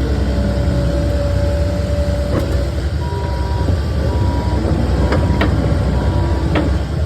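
Takeuchi skid steer's diesel engine running under work, with its backup alarm beeping about once a second from about three seconds in as it reverses, and a few metal clanks.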